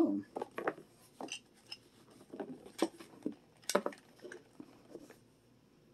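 Treasure X Dino Gold hard plastic toy T-rex being worked by hand: a scattered series of clicks and clatters from its moving jaw and parts, the two loudest about three and four seconds in.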